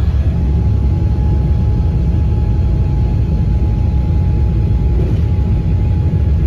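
Cabin noise of a Boeing 777-300ER with its GE90 engines at takeoff power: a loud, steady low rumble with a faint steady whine above it, the sound of the takeoff run.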